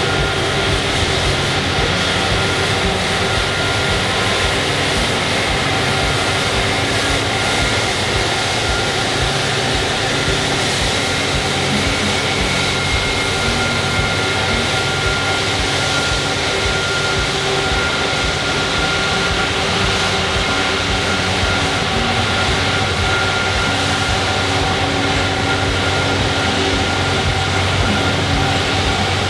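Airbus Beluga XL taxiing, its Rolls-Royce Trent 700 turbofans running with a steady whine over a constant rumble.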